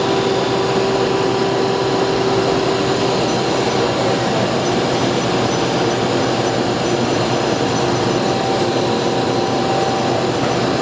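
Spindle of a Doosan Puma 2000SY CNC turning center running at high speed: a steady mechanical whirr with a thin whine through it.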